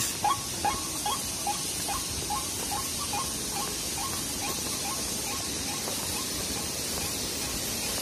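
White-breasted waterhen calling: a series of short rising squawks, about two or three a second, slowing and fading out over the first six seconds.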